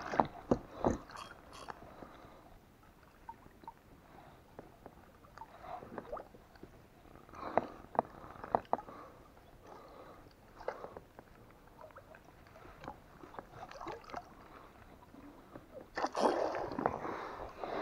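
Water sloshing and gurgling against the side of an inflatable PVC boat, with scattered knocks and taps against the boat. Near the end comes a louder stretch of splashing.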